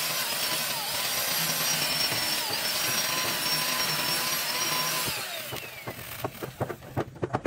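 Corded electric chainsaw cutting timber, its motor whining steadily with the pitch dipping briefly twice as the chain bites. About five seconds in the saw is switched off and winds down, followed by a few sharp knocks.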